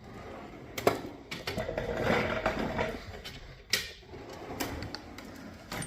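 Metal hand tools being handled in a toolbox drawer: a few sharp clacks of metal on metal, with a stretch of scraping and shuffling about a second in.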